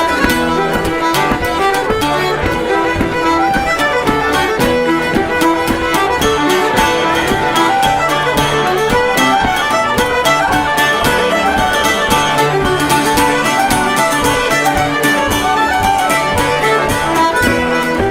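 Background music led by a fiddle, with a steady rhythm underneath.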